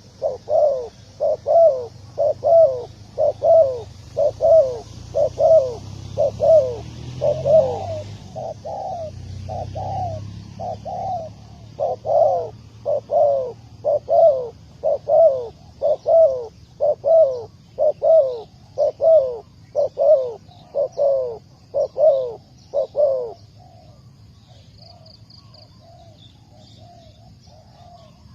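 Spotted dove giving its repeated bowing coo: short coo notes about twice a second, loud and regular, turning to fainter notes near the end. Faint high chirps of small birds behind it.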